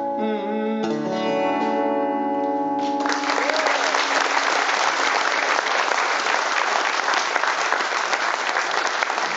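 Acoustic guitar plays the song's last chord, which rings out. About three seconds in, the audience breaks into applause, which carries on to the end.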